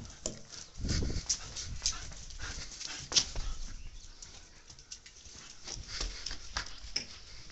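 German Shepherd playing right at the phone: a run of short scuffs and clicks, with a low thump about a second in and a sharp knock about three seconds in.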